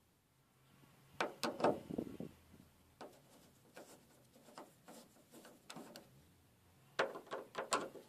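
Metal clicks and light rattles from a VW T4 Transporter's door lock and latch mechanism as it is worked by hand and with a screwdriver. A quick cluster of clicks comes about a second in, then scattered single ticks, then another quick cluster near the end.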